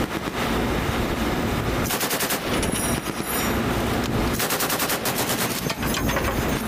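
Belt-fed M240 machine gun firing several short bursts of automatic fire, the shots coming rapidly and evenly within each burst.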